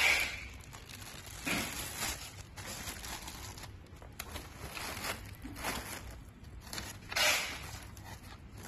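Plastic packaging bag crinkling and cardboard box rustling as a chandelier part is handled and unpacked, in several short bursts.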